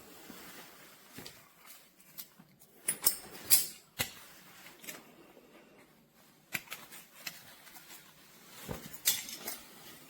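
Irregular clicks and taps over a faint rustling, as of objects being handled, the loudest a pair of sharp clicks about three seconds in.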